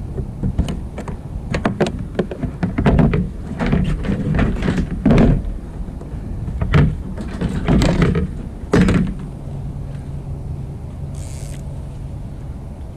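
Irregular knocks and clatter on a plastic fishing kayak as a heavy fish is fought on rod and reel, some knocks coming in quick clusters. After about nine seconds they stop and only a steady low rumble remains.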